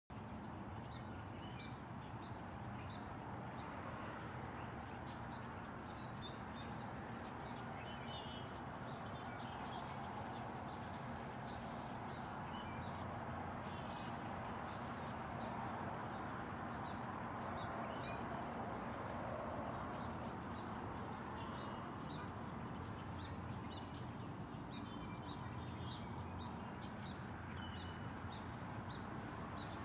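Small songbirds chirping and twittering in short high calls, busiest in the middle stretch, over a steady even background hiss.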